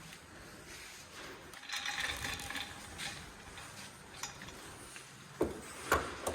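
Stainless lock wire and lock wire pliers being handled as wire is cut: a scratchy rustle of wire, then a few short sharp metallic clicks and snips, the loudest two close together near the end.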